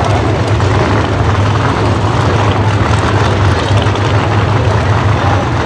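Two drag race cars' engines idling with a loud, steady low rumble as the cars pull up to the starting line.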